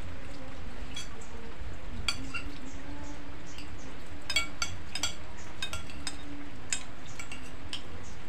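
Spoon or fork clinking against a plate while eating, a scatter of light irregular clinks, over a steady hiss of rain.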